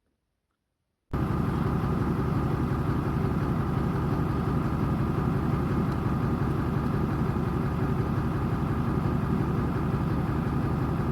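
Vehicle engine idling steadily, cutting in abruptly about a second in after near silence.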